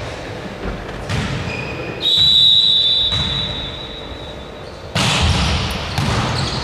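A whistle blown in one long blast of about a second, starting about two seconds in and trailing off, among the thuds of a ball bouncing on a court floor. Busier thumping and court noise follows from about five seconds in.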